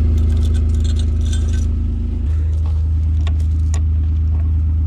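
Utility vehicle's engine idling steadily, with light metallic clinking and a few faint clicks over it.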